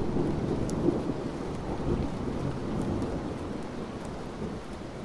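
Rain falling with a rolling rumble of thunder that swells at the start and slowly dies away.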